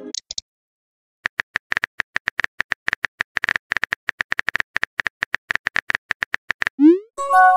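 Simulated phone keyboard typing clicks from a texting-story app, several quick taps a second as a message is typed. Near the end a short rising blip and a chime sound as the message sends.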